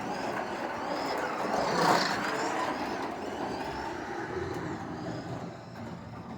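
Carrera Digital 124 BMW M4 slot car lapping the track, its electric motor whine and track running noise loudest about two seconds in as it passes, then fading. It runs on freshly fitted soft urethane tires, which carry less noise than the hard stock rubber.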